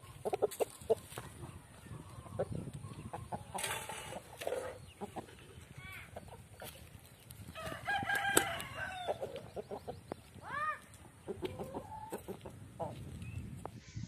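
Parrot-beak Aseel roosters clucking in short calls, with one rooster crowing for about a second and a half near the middle.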